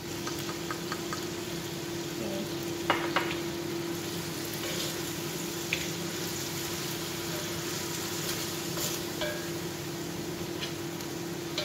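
Chicken cubes sizzling in a hot wok in soy and fish sauce, stirred with a spatula that knocks and scrapes against the pan now and then, the sharpest knocks about three seconds in. A steady low hum runs underneath.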